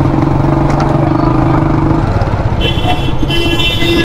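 Street traffic with a motorcycle engine running and rumbling wind and road noise; a steady engine hum stops about halfway through. A shrill high tone sounds twice in the last second and a half.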